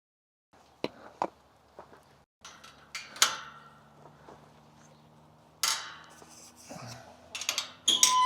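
A scattering of sharp clicks and knocks with a couple of scraping, rustling bursts, the sounds of hard objects being handled, ending in a quick run of clicks.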